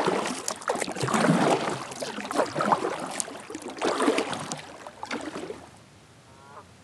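Kayak paddle strokes: the blades dipping and splashing in the water about every second and a quarter, fading out near the end as the paddling stops.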